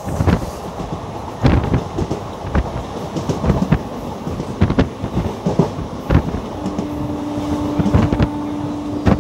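Train running, heard from on board: a steady rumble of wheels on track with irregular sharp clicks over the rail joints. A long steady tone comes in about two-thirds of the way through and holds to the end.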